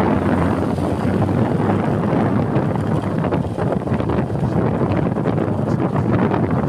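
Steady wind rush buffeting the microphone of a moving motorcycle, with the motorbike running and road noise underneath.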